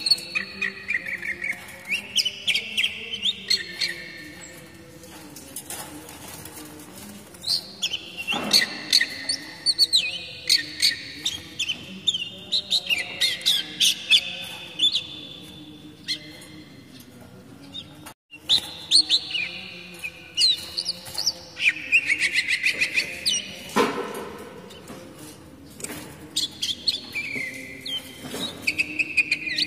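Oriental magpie-robin (kacer) singing: phrases of rapid chirps and whistled notes, repeated with short pauses between them.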